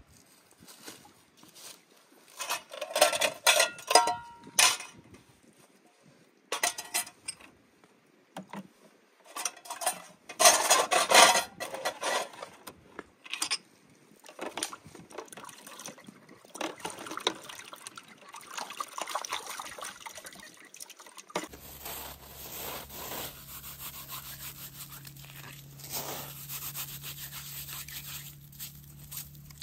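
Dishes washed by hand in a stone basin under an outdoor tap: irregular clatter of metal plates and splashing, rinsing water, loudest in two spells early and midway. About two-thirds of the way through it changes to hands rubbing and scrunching snow, a steady rubbing noise over a low hum.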